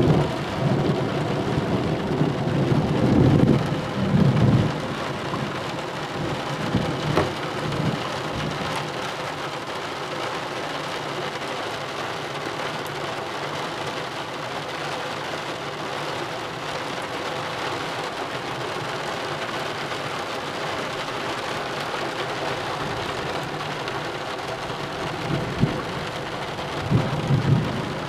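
Steady rain falling in a thunderstorm, with thunder rumbling low through about the first four seconds and again near the end.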